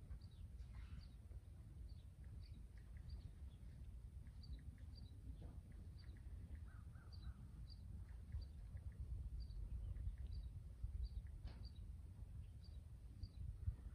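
A bird chirping faintly and repeatedly, short high notes every half second or so, over a low rumble.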